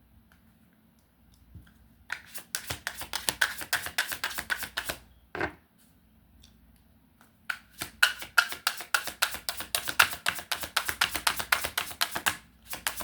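A deck of tarot cards being shuffled by hand in two bouts of rapid card flicks. The first starts about two seconds in and lasts about three seconds; the second runs through most of the second half.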